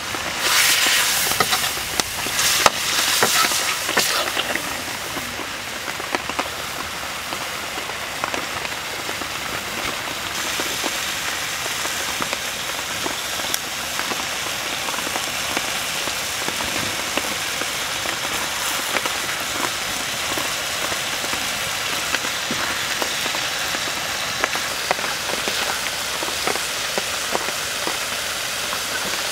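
A metal ladle stirs and scrapes a beef and pepper stir-fry in a steel wok over a wood fire for the first few seconds, over the hiss of the sizzling food. After that a steady sizzling hiss goes on, with small crackles scattered through it.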